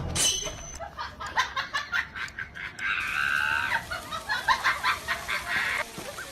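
An animal's rapid run of short calls, with one longer held call about three seconds in and more short calls after it.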